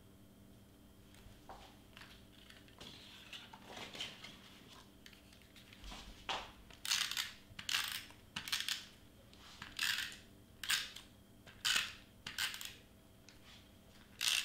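Handheld tape runner drawn across cardstock to lay down adhesive: about eight short scratchy strokes roughly a second apart, starting about halfway in, after softer rustling of paper being handled.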